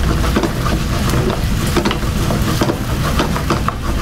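Metal tongs clicking and scraping against a frying pan as octopus tentacles are turned in a reducing squid-ink sauce, a rapid run of short irregular clicks over a light sizzle and a steady low rumble.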